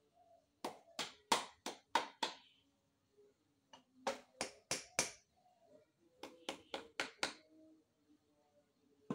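Sharp knocks struck with a piece of wood against the cylinder head of a Mitsubishi Minicab engine, in three quick runs of four to six blows, about three a second.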